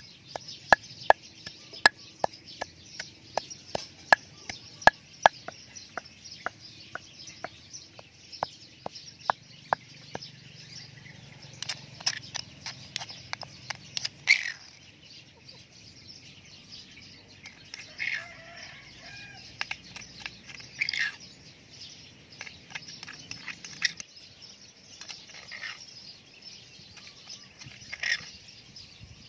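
Wooden pestle pounding rice in a stone mortar: sharp knocks, about two to three a second, stopping about ten seconds in. A metal spoon then scrapes and taps the rice flour against the stone. Chickens cluck now and then in the background.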